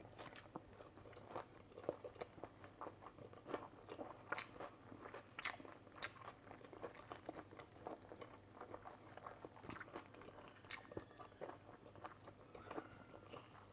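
Close-miked chewing of tender boiled-then-barbecued pork: faint, irregular wet mouth clicks and bites.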